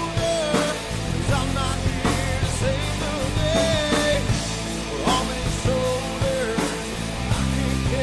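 Background song with drums, bass and a wavering melody line.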